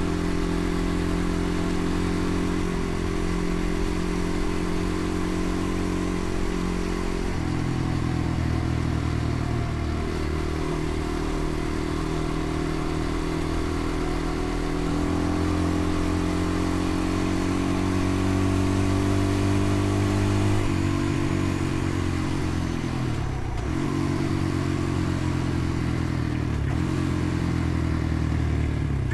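Dirt bike engine running under way, its note stepping to a new pitch a few times as the revs change.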